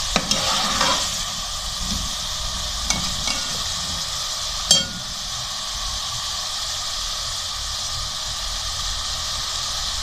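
Chicken pieces sizzling steadily in hot oil in an aluminium pot as they are browned before the spices go in. A few clinks of the slotted steel spoon against the pot come in the first half, the sharpest about halfway through.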